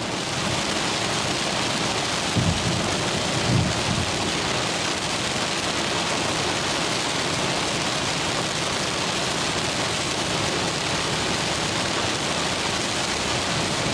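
Heavy rain hitting a moving car's windshield and roof, heard from inside the cabin as a steady, dense hiss. Two brief low thumps come a few seconds in.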